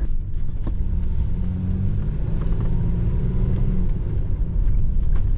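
Low rumble of a moving vehicle's tyres and engine heard inside the cabin, with a steady low drone from about one and a half to four seconds in.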